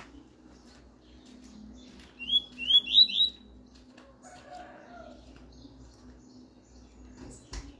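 Caged double-collared seedeater (coleiro) giving a quick run of four short, rising whistled notes about two seconds in, part of its 'tuí-tuí' song. A single sharp knock comes just before the end.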